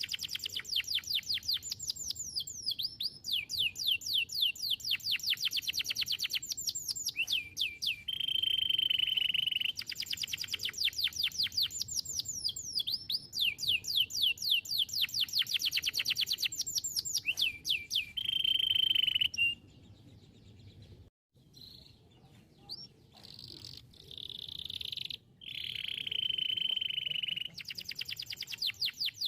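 Domestic canary singing: long rolling trills of fast downward-sweeping notes alternating with steady held whistles. The song breaks off past the middle, comes back quieter with a held whistle, and trills again near the end.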